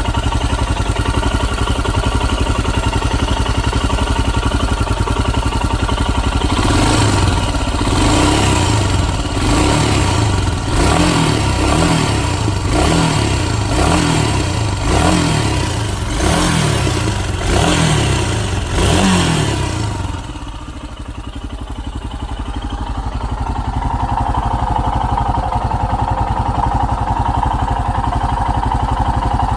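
A Royal Enfield Himalayan's 411 cc single-cylinder engine idles, then is revved about eight times in quick succession before settling back to idle, with a steady higher tone in the last few seconds. The owner suspects a muted rattle that comes in under acceleration at around 4,000 rpm, and is unsure whether it is normal.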